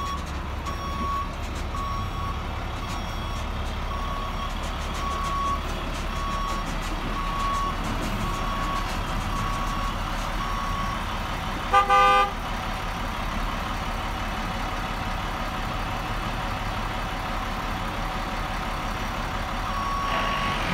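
A reversing truck's backup alarm beeping evenly, about once every three-quarters of a second, over the low running of its engine; the beeping signals the truck is in reverse. About twelve seconds in comes a short, loud horn toot, the loudest sound here, after which the beeping stops until it starts again near the end.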